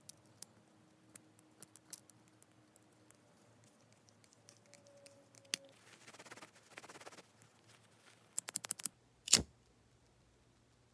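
Small clicks from handling a 1950s Prince automatic lighter, a short scratchy rasp, a quick run of clicks, then one loud snap about nine seconds in.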